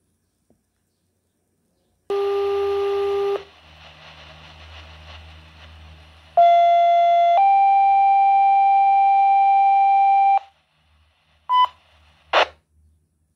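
Fire and EMS dispatch alert tones over a Baofeng BF-F8HP Pro handheld radio's speaker. A low, buzzy tone holds for about a second, then faint radio hiss, then a two-tone page: a short tone stepping up to a higher tone held for about three seconds. It ends with a short beep and a brief burst of static.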